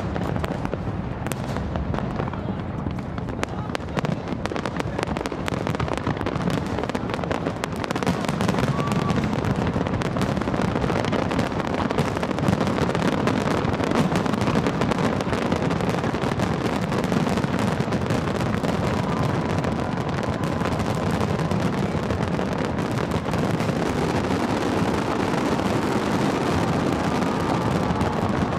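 Large aerial fireworks display: many shells bursting together in a continuous rapid crackle of bangs, growing louder about eight seconds in.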